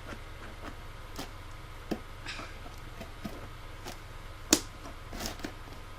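Handling noises from a cardboard package and scissors: scattered light clicks and taps with brief rustles, and one sharp knock about four and a half seconds in.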